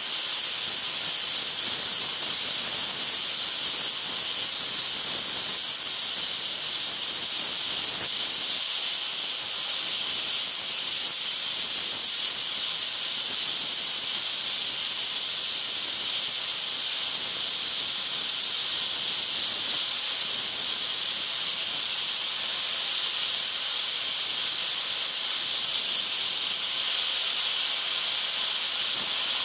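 Longevity FORCECUT 42i air plasma cutter, set at 40 amps, cutting through 1-inch steel with its hand torch, at the machine's 1-inch sever rating: a steady high hiss of the plasma arc and air jet, unbroken and even in level throughout.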